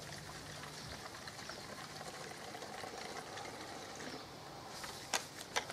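Liquid detergent being poured from a bottle into a Kärcher K5.740 pressure washer's onboard detergent tank, with a few sharp clicks near the end.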